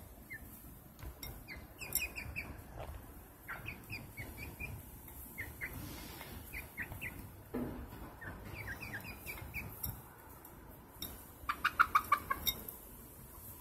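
Young hens making short, soft peeping and clucking notes while eating, in small groups throughout. Near the end comes a quick run of about eight sharp taps, the loudest sound, as beaks peck at the feed bowl.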